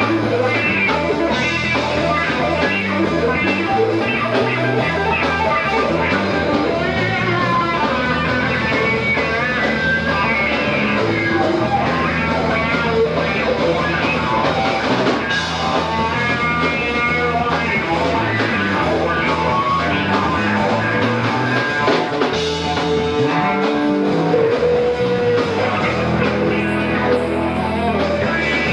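Live rock band playing loudly: electric guitars over a drum kit, with a guitar line wandering in pitch above the band.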